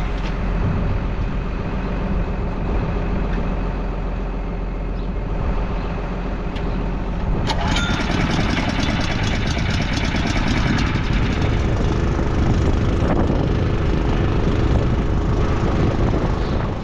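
A large engine running steadily. About halfway through, a dense, rapid clatter joins it and continues.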